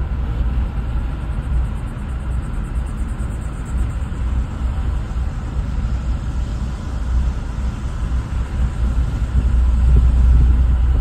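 Car driving, heard from inside the cabin: a steady low road and engine rumble that gets louder about nine seconds in.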